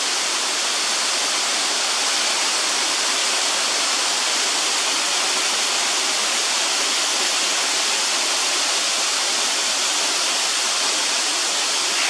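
Seirei Falls pouring steadily into its pool: an even, bright rushing hiss of falling and splashing water that holds the same level throughout.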